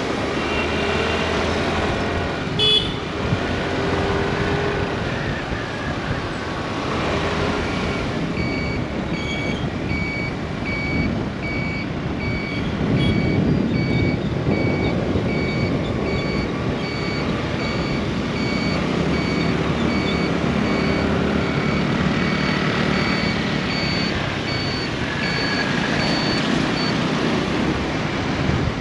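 Motorbike riding through city traffic: a steady engine and road noise mixed with wind rush. From about eight seconds in until near the end, an electronic beeper sounds steadily, about twice a second.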